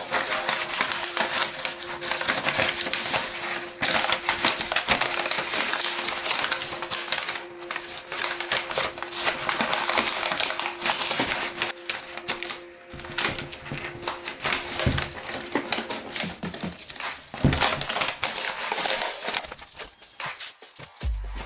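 Sandpaper rubbing over the steering wheel's vinyl rim in quick, scratchy strokes, over quiet background music.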